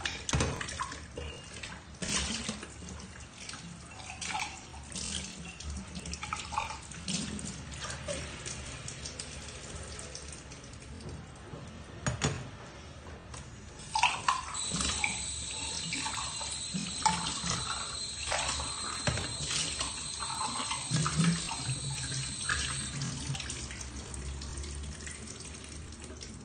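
Glasses being hand-washed in a stainless steel sink: water splashing and sloshing, with frequent clinks and knocks of glass against glass and against the steel basin. A steady high whistle sounds for several seconds in the second half.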